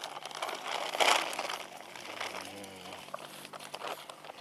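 Plastic rice bag crinkling and rustling as it is handled, with one loud crinkle about a second in.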